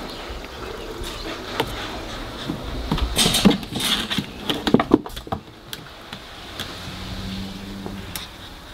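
A puppy's claws scrabbling and knocking on a plastic toddler slide as it climbs onto it, a cluster of clicks and knocks a few seconds in. A steady low hum runs underneath.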